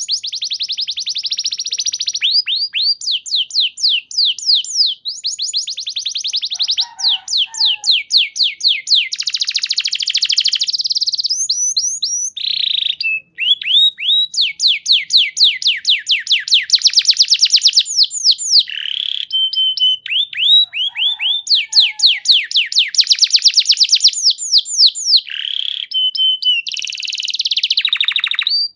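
Domestic canary singing a continuous song of fast trills, each phrase a rapid string of the same falling note, switching to a new phrase every second or two, with a few short steady whistles in between.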